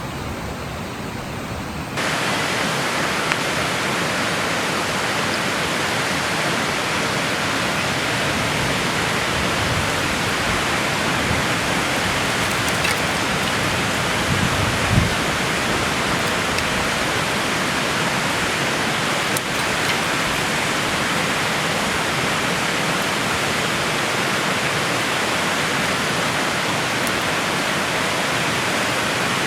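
River water rushing steadily, with a few faint knocks.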